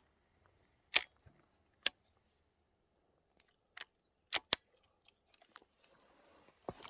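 Scattered sharp clicks and snaps from fishing tackle being handled while the angler changes lures, about seven in all at irregular intervals, the loudest about a second in.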